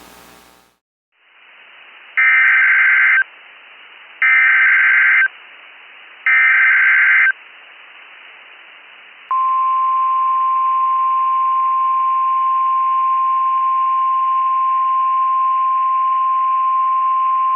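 NOAA Weather Radio alert tones over receiver static. Three loud, roughly one-second bursts of SAME digital header data, about two seconds apart, are followed by the steady 1050 Hz warning alarm tone. This sequence signals that a new warning broadcast is about to start.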